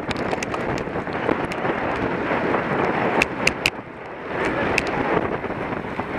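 Wind buffeting the microphone of a camera riding on a racing bicycle at speed, a steady rushing noise. A few sharp ticks come about halfway through, and the rush briefly drops off about four seconds in.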